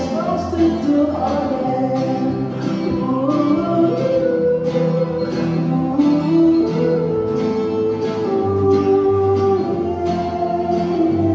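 Acoustic guitars, two nylon-string guitars and a steel-string, played together, strumming chords in a steady rhythm, with a voice singing a melody over them.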